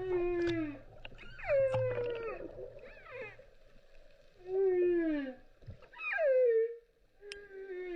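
Whale calls recorded underwater: a series of moaning calls, each a pitched tone with overtones that slides downward, coming about every second or two.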